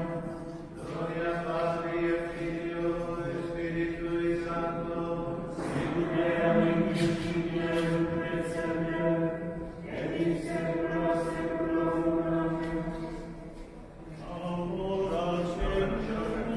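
A choir of Franciscan friars chanting together in procession, singing long held phrases with short pauses for breath between them.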